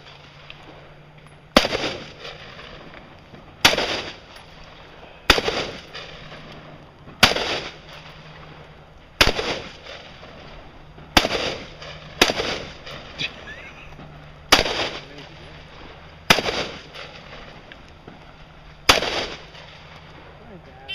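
AR-15-style rifle fired as single shots at a deliberate pace: about ten loud cracks, one every one to two and a half seconds, each trailing off in a short echo.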